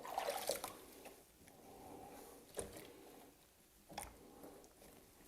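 Quiet sloshing and squishing of water as a hen is washed by hand, with a short rustle at the start and two brief knocks.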